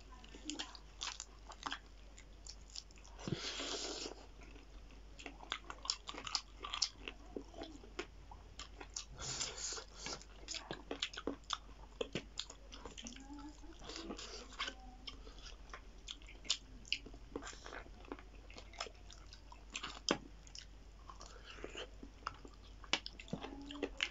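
Close-up eating sounds of chicken feet and other food eaten by hand: irregular wet smacks, bites and crunchy clicks of chewing, with two longer hissing slurps or breaths, about three seconds in and again near ten seconds.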